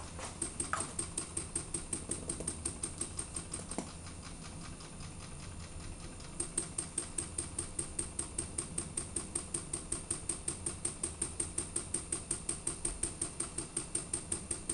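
Model Ringbom Stirling engine running on residual heat after its burner has been taken off, its mechanism clicking in a steady rhythm of about five to six clicks a second as it slowly cools toward stopping. The clicks fade for a couple of seconds about four seconds in, then return louder; a single sharper knock comes at the very start.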